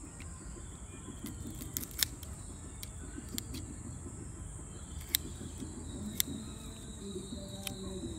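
Kitchen scissors snipping raw prawn heads: several sharp clicks at irregular intervals, the loudest about two seconds in, over a steady high-pitched tone.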